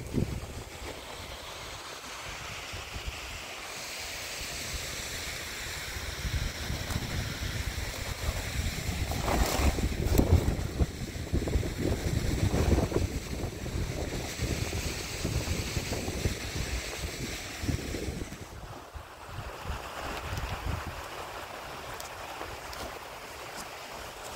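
Wind buffeting the microphone over a steady rushing hiss, with the gusts strongest about ten seconds in.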